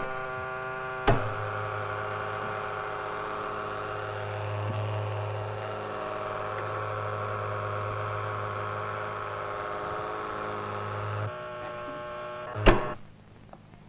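Steady electrical hum of an AC coil levitation track, with a multi-pitched motor whine over it, as a levitated model is driven along by a small air screw (propeller). A click about a second in brings in the deep hum, which drops out about two seconds before the end. A second click shortly after stops the rest.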